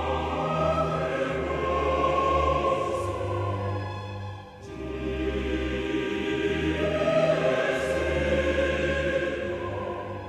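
Choral music with long held sung notes over a low sustained bass, dipping briefly about halfway through.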